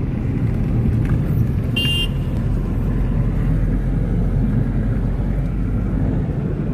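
Steady road and engine rumble inside a moving car's cabin, with a brief high beep about two seconds in.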